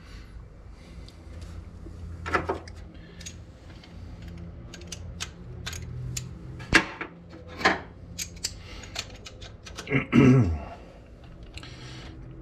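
Light metal clicks and clinks of a bolt, a cut steel spacer and a socket extension being handled and fitted at an engine's alternator bracket, irregular, with a couple of sharper clinks in the middle. A short vocal sound comes about ten seconds in.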